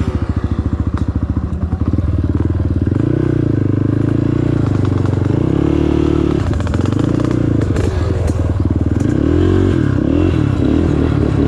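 Off-road vehicle engine running. After a couple of seconds of even pulsing, the pitch rises and falls as it is throttled, with several quick revs near the end.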